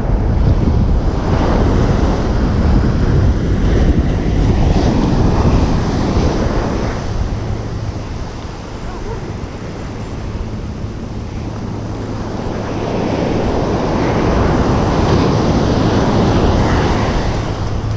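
Surf breaking and washing up a sandy beach, with wind buffeting the microphone. The rush of the waves is loud at first, eases off midway, then swells again near the end.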